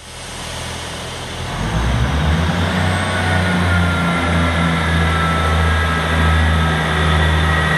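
Class 158 diesel multiple unit's underfloor diesel engine running with a low, steady drone, which grows louder and rises a step about two seconds in.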